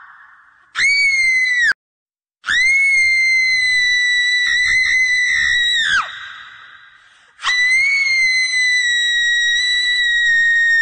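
High-pitched human screams, three times: a short shriek cut off abruptly, then two long held shrieks, each dropping in pitch at the end and trailing off in a fading echo.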